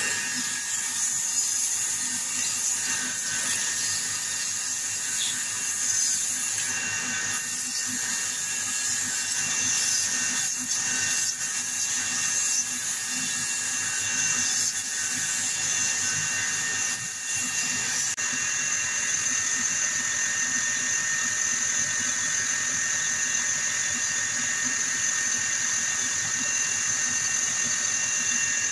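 Small bench lathe running steadily with a high whine and hiss while sandpaper is pressed against the spinning awl handle.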